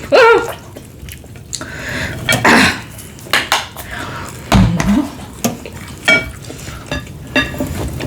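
Cutlery and dishes clinking and scraping during a meal, in a run of irregular sharp clicks and knocks. A brief wavering squeak comes right at the start.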